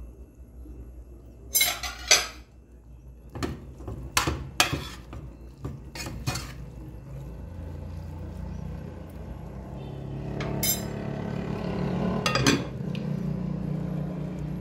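Metal spoon scraping and clinking against an aluminium pot while stirring ground beef, with several sharp knocks of the spoon on the pot. A steady low hum builds in the second half.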